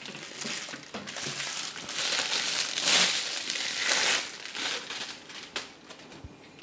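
Thin clear plastic wrap crinkling as it is pulled off a stainless-steel tumbler, loudest in the middle and dying down near the end.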